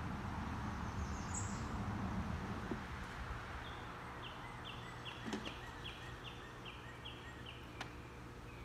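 Steady outdoor background noise, loudest in the first few seconds. From about four seconds in, a songbird repeats a short high note about ten times, two or three a second, with a couple of faint clicks from the hive parts being handled.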